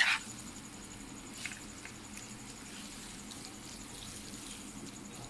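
A wooden spatula hits and scrapes a wok of noodles once at the start, then a few faint, soft scrapes and ticks from the stirring over a low, steady background.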